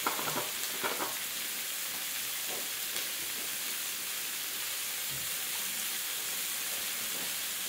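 Food frying in a pan with a steady sizzle; the pan holds pinakbet of pork belly and vegetables still cooking. A few light clicks near the start.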